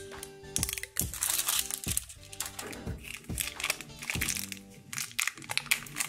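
Crinkling and crackling of a plastic toy wrapper being unwrapped by hand, over background music.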